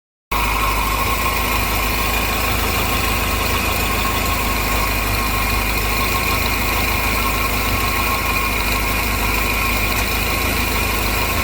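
Car engine idling steadily, heard close to an exhaust system that has a small leak at a weld joint by the catalytic converter. The sound sets in abruptly just after the start.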